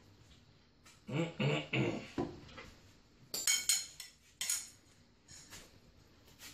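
Metal spoon clinking and scraping against a white bowl while eating, a handful of sharp clinks around the middle, with a short murmur of voice a little after a second in.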